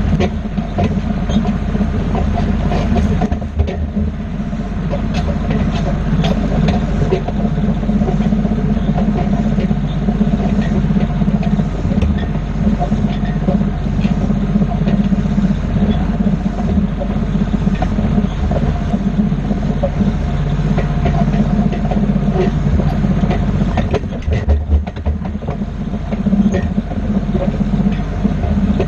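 A tractor engine runs steadily while the dirt-laden wagon it tows rattles and clanks over the bumps, with frequent short knocks.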